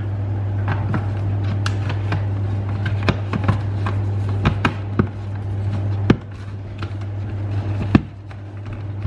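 Plastic clicks and knocks as the detachable chin bar of a Bell Super DH helmet is handled and pushed onto its side mounts and rear clip, over a steady low hum. The loudest knock comes about eight seconds in.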